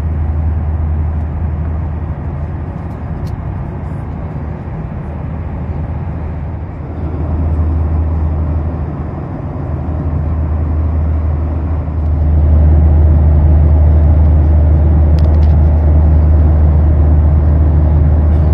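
Cabin noise of a Boeing 737-800 in cruise: a steady low drone of engines and rushing airflow, growing louder about twelve seconds in.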